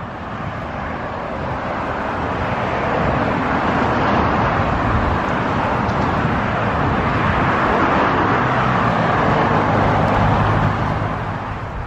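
Road traffic on a multi-lane boulevard: a steady rush of cars going by that builds over the first few seconds, stays loud, and eases off near the end.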